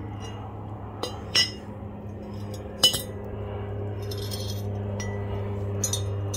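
Welded steel boat-trailer skid brackets clinking as they are handled and set down on concrete: a few sharp metallic clinks in the first three seconds, the loudest near the third second, then fainter clinks. A steady low hum runs underneath.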